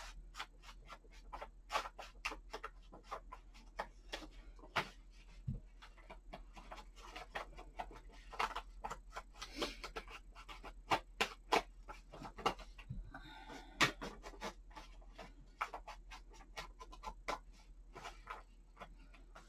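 Small foam ink blending tool dabbed and rubbed along the edges of a paper planner page, distressing it with ink: a run of soft, irregular taps and scuffs, a few a second.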